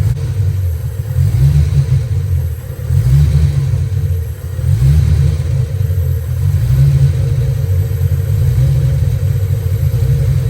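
Ford Fox-body Mustang engine running, a low rumble that swells and dips unevenly every second or two.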